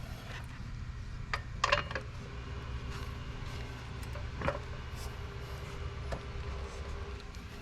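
A few light clicks and knocks, spaced irregularly, over a low steady hum.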